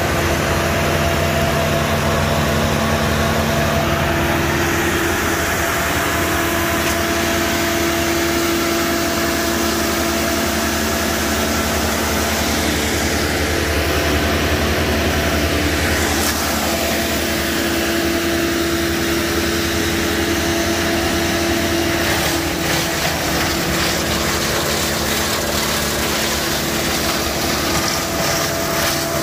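Engines of heavy land-clearing machinery running steadily, with a change in the engine note about five seconds in.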